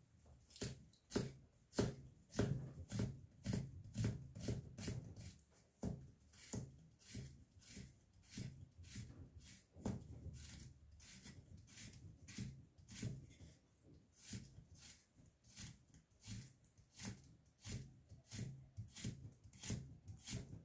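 Repeated strokes of a cheap Daiso kitchen knife, about two a second in an even rhythm, each a short knock with a crisp edge.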